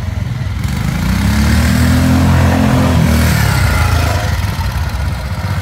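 Old British trials motorcycle engine running at a steady pitch as the bike rides past. It grows louder to a peak about two seconds in, then fades.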